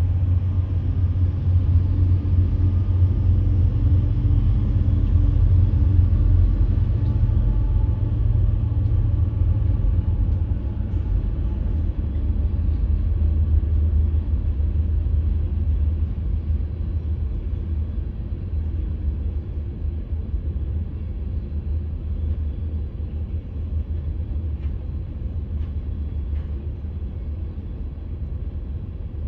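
Freight train's diesel locomotives passing close by, a deep steady engine rumble with a low hum. In the second half the locomotives give way to tank cars, and the sound eases to the lower rolling of car wheels on the rails.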